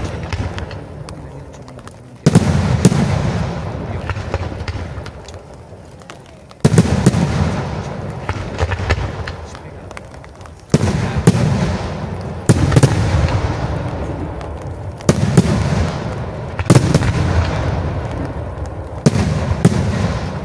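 Aerial firework shells bursting: seven loud bangs, two to four seconds apart, each followed by a low rumble that dies away over a few seconds, with faint crackling between them.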